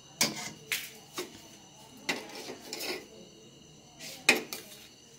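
Spoon clinking and scraping against a metal cooking pot while rice and chicken are layered for biryani: a few sharp clinks, a longer stretch of scraping about two to three seconds in, and the loudest clink near the end.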